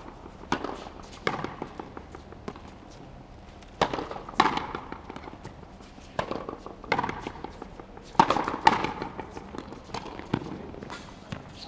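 Frontenis rally: a rubber ball struck with rackets and slapping against the frontón wall. A string of sharp cracks, many in pairs about half a second apart.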